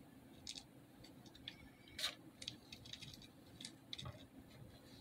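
Faint, scattered clicks and light taps as dry cereal loops are handled and pressed into wax in a glass bowl.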